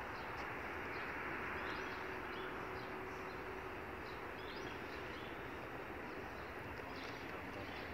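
Steady street traffic noise, with small birds chirping briefly again and again over it and a faint steady hum.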